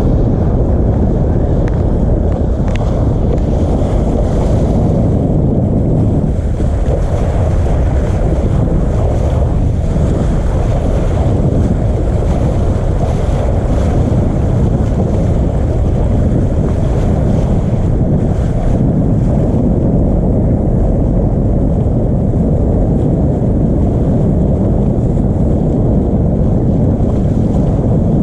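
Strong wind buffeting the microphone over the rush of sea water along a Volvo 65 racing yacht under sail: a loud, steady low rumble.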